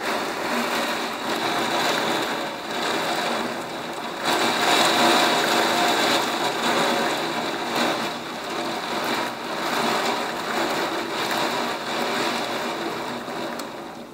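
Heavy storm rain and strong wind gusts lashing trees. A dense rushing noise swells and eases with each gust.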